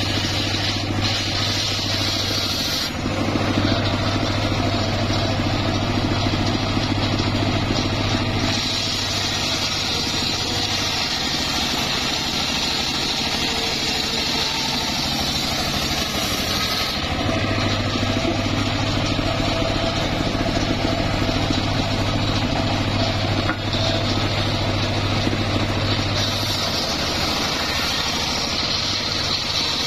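Engine-driven homemade circular sawmill running, its blade cutting lengthwise through a mahogany log with a steady machine hum and a hissing rasp of sawing. The low hum weakens for several seconds in the middle and again near the end as the load on the blade changes.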